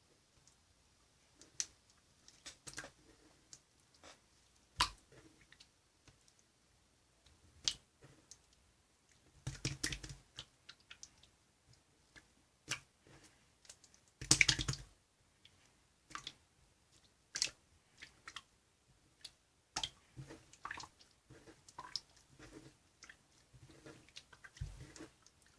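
Irregular soft clicks and taps at uneven intervals, with two louder clusters of clicking and rustling about ten and fourteen seconds in.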